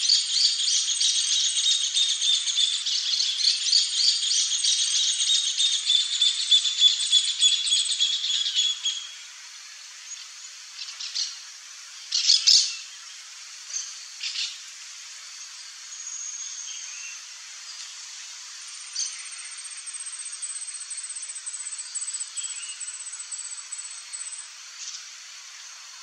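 Wild birds chirping and calling. A dense run of rapid, high-pitched chirps lasts about nine seconds, then it turns quieter, with scattered short chirps and a long thin high note in the second half.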